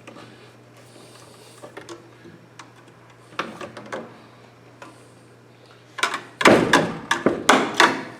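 Quiet rustling and light clicks of electrical cable and a wiring box being handled, then about six seconds in a quick run of loud, sharp knocks and rattles lasting about two seconds.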